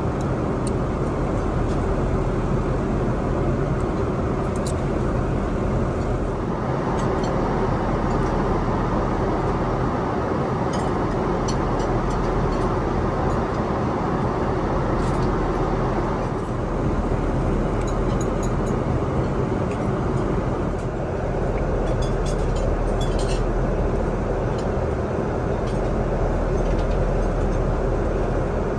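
Steady cabin noise of a Boeing 777-200ER in flight: an even rush of airflow and engines with a low hum underneath, and a few faint clicks.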